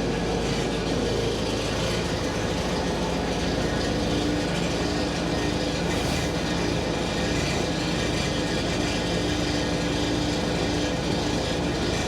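Skid steer loader's engine running steadily while the bucket cleans manure out of the horse stalls.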